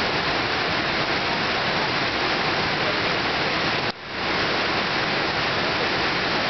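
Steady rush of a large waterfall pouring into a pool, with a brief drop in level about four seconds in.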